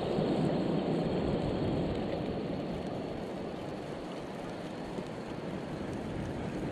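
Steady rushing of wind on the microphone over open water, easing a little after about two seconds, with a faint tap about five seconds in.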